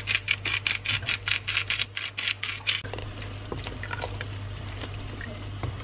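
Salt and pepper being added to a pot of vegetables in stock: a quick, even run of about fifteen rasping strokes, about five a second, stopping about three seconds in. After that come a few light knocks of a wooden spoon stirring the pot.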